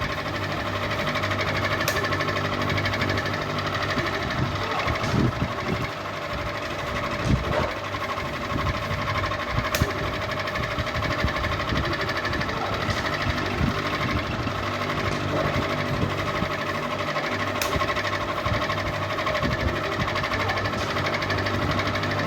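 Ceiling fan running steadily with a constant mechanical hum, with a few sharp clicks.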